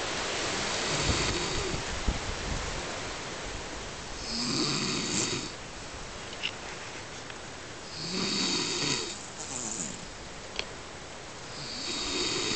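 A man snoring in his sleep: three snores about four seconds apart, each lasting about a second.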